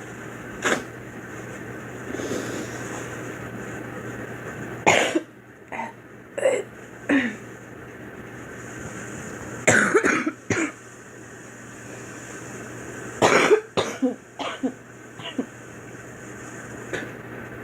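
A young woman coughing repeatedly, sometimes a single cough and sometimes a quick fit of several in a row, with a few seconds' pause between fits. A steady low hum runs underneath.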